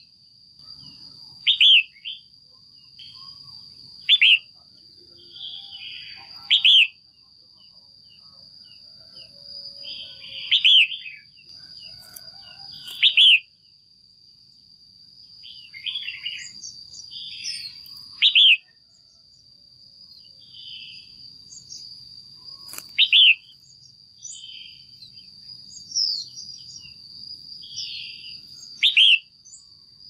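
Female red-whiskered bulbul calling: about eight loud, short, clear calls a few seconds apart, with softer chattering notes between them.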